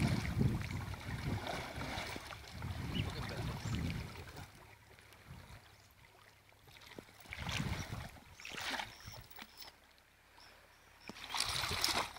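Shallow lake water sloshing and splashing around a person wading through it, heaviest in the first few seconds, then quiet with a few short splashes later on.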